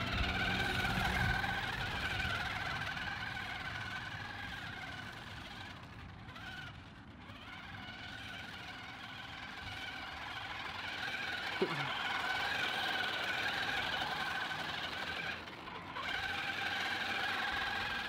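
A 1/10-scale RC car's motor and gears whining at a steady pitch as it drives. The whine fades as the car moves off down the course and comes back louder in the second half as it nears again.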